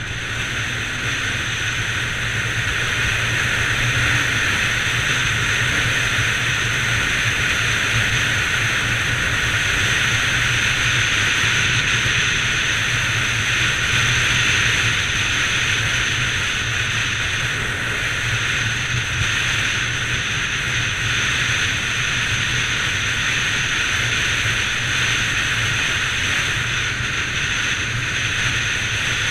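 Bajaj Pulsar 200 NS single-cylinder motorcycle engine running steadily under way, mixed with heavy wind and road noise. It builds over the first few seconds, then holds at a constant pitch and level.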